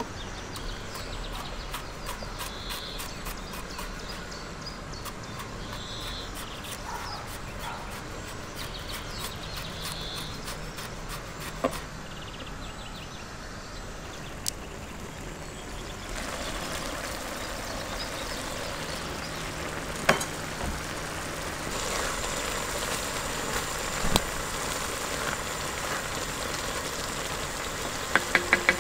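Chef's knife slicing garlic on a wooden cutting board, light regular taps of the blade. Then a steady hiss of a gas burner under a wok with a tomato-and-onion mixture sizzling, and a few sharp knocks of the spatula against the pan, a quick run of them near the end.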